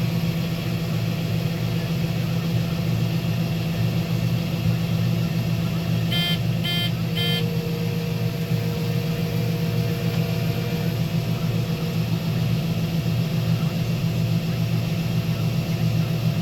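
Combine harvester running steadily while shelling corn. About six seconds in there are three short electronic beeps.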